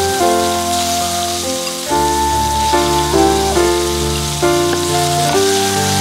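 Pond mussels sizzling as they fry in oil in a steel wok, under background music whose notes change every half second or so.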